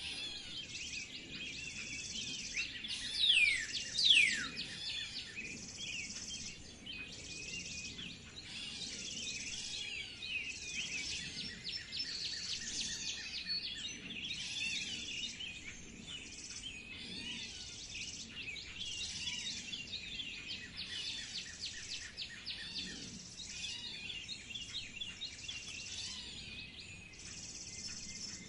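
A dense chorus of many birds chirping and trilling at once, with two loud downward-sliding whistles about three and four seconds in.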